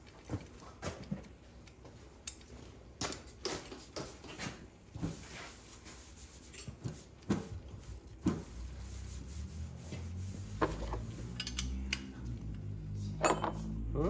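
Scattered clicks and clinks of small metal parts handled by gloved hands as a new 0.75 gph, 70° hollow-cone nozzle is fitted to a Carlin oil burner's brass nozzle adapter and electrode assembly. A steady low hum builds up from a little past halfway.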